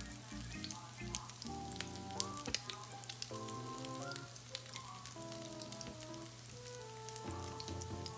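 Crab balls sizzling as they shallow-fry in oil in a frying pan: a steady hiss with frequent small crackles and pops.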